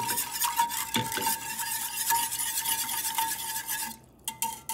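Wire whisk beating fast in a stainless steel saucepan of thin liquid sauce: a rapid scratchy rattle of the wires against the pan, with a faint metallic ring. It stops about four seconds in, leaving a few light metal clicks.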